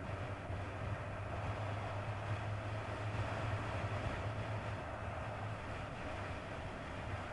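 1999 Kawasaki ZX-9R's inline-four engine running steadily at cruising speed as a low, even hum, mixed with wind and road noise rushing over the microphone.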